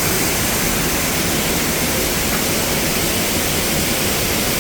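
Steady rush of water pouring down an artificial waterfall.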